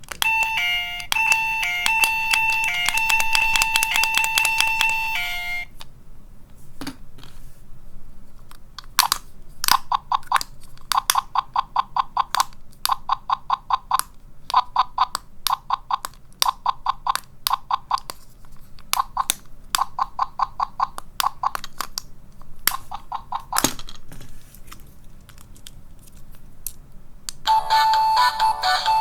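Miniature electronic capsule toys playing sounds through a tiny speaker: a short electronic jingle, then a button click and runs of rapid beeps, each run about a second long, with another click later. Near the end a louder electronic tune begins.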